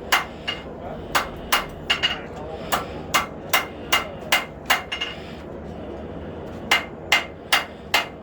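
Hand hammer striking hot steel on an anvil, forging down and rounding the tip of a blade. The blows come evenly, about two and a half a second, each with a short metallic ring, and pause for about two seconds past the middle before starting again.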